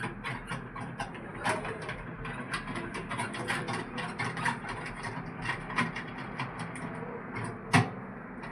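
A rapid, irregular run of small clicks and knocks, as of hard parts being handled, with one sharper knock near the end.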